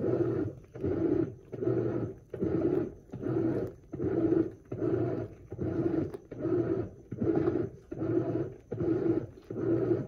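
Brastemp Eggo 1 kg mini washing machine in its wash cycle: the motor and impeller run in short back-and-forth strokes, about three every two seconds, each a hum with churning of the load.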